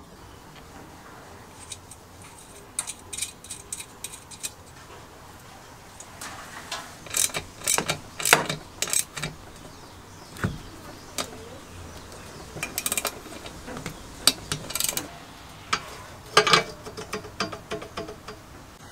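A socket ratchet clicking in short runs as nuts are tightened on a steel mower side plate, with metal parts clinking and tapping as pieces are fitted together.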